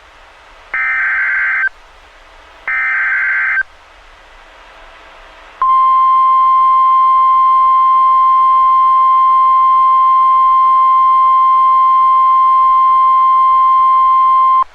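NOAA Weather Radio Emergency Alert System activation: two short digital SAME header data bursts, about a second each and two seconds apart. After a pause of about two seconds comes the steady 1050 Hz warning alarm tone, one unbroken high tone held for about nine seconds, marking the start of a Fire Warning alert.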